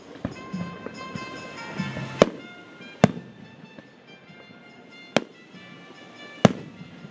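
Aerial fireworks shells bursting in four sharp bangs, roughly one to two seconds apart, with music playing in the background.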